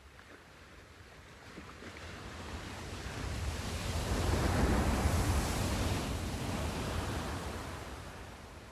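Sea surf: one wave building to its loudest about halfway through, then fading away.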